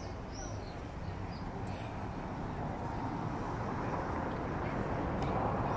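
Steady outdoor background noise of a busy waterfront promenade, growing slowly louder, with a few short, high bird chirps in the first second and a half.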